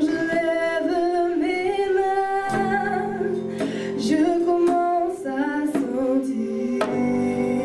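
Women singing a worship song over held instrumental chords.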